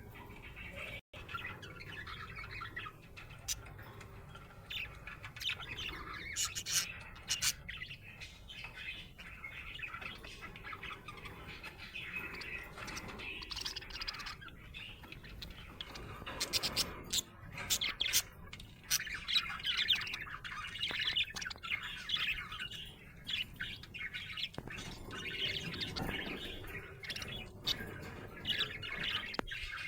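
Budgerigar chirping and chattering without a break, with sharp clicks mixed into the warble: the chatter of a happy, contented budgie. The sound cuts out for an instant about a second in.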